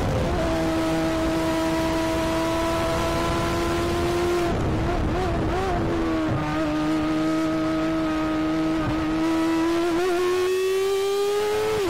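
Onboard sound of a Formula 1000 race car's 1000 cc motorcycle engine at high revs, holding a steady high note with a brief warble midway. Near the end it climbs, then drops in pitch at a gear change.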